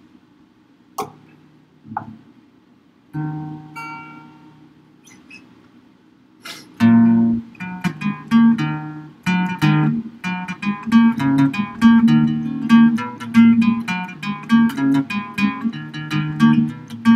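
Two short knocks, then a single chord on a capoed cutaway acoustic guitar rung out and left to fade. About seven seconds in, a steady rhythmic guitar accompaniment starts and carries on.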